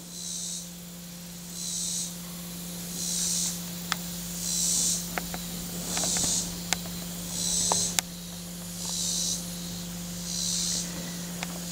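Rhythmic insect calling: a high buzzing pulse repeated about every second and a half, with a few faint clicks.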